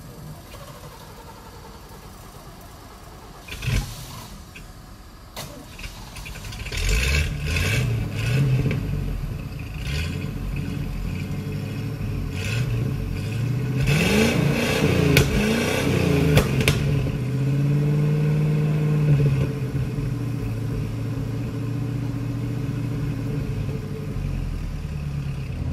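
Old 1988 V30 tow truck's engine starting up about a quarter of the way in and being revved up and down several times before running steadier. The engine is struggling and does not want to stay running, a sign of the engine trouble the owner says needs work.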